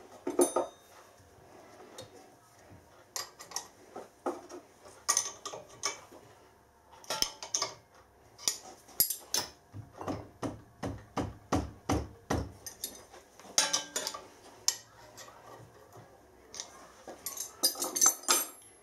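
Metal parts and tools knocking and clinking as the motor on a milling machine is shifted on its mount to bring its pulley into line, with a run of quick knocks, about three a second, in the middle.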